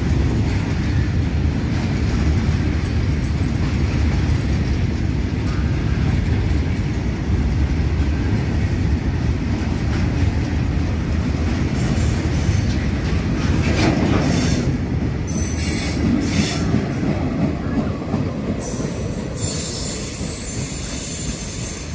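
A long freight train of covered goods wagons passes close by, its wheels rumbling and clattering steadily on the rails. From about halfway through come brief high-pitched wheel squeals, and the noise eases off near the end as the brake van at the tail goes past.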